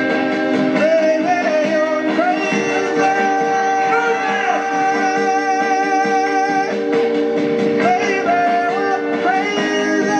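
Music played through the Inateck BP2001 Bluetooth speaker: a singing voice carries a gliding melody over guitar and held chords.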